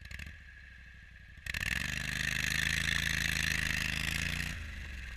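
Argo amphibious ATV engine running low, then about a second and a half in it speeds up abruptly. It holds a higher steady pitch with a loud hiss over it for about three seconds, then eases back off.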